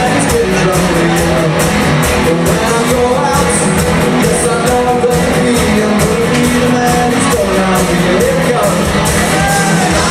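Live rock covers band playing: a singer over guitar and a full band, with a steady beat.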